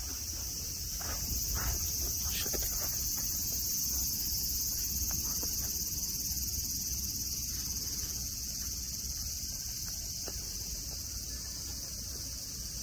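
Chorus of summer cicadas: a steady high-pitched drone sitting in two high bands, with a low hum beneath it.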